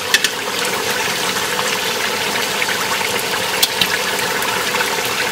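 Meat simmering uncovered in its own juices in a steel stockpot, a steady bubbling sizzle as the liquid cooks down. A few light clicks of metal tongs against the meat and pot come near the start and around the middle.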